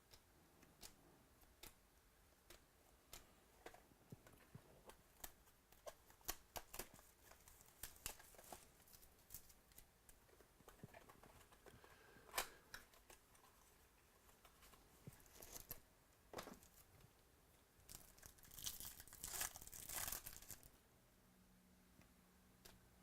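Faint handling of trading cards and their packaging: scattered light clicks and taps as cards are handled, with a denser stretch of crinkling and tearing near the end, typical of a foil pack wrapper being torn open.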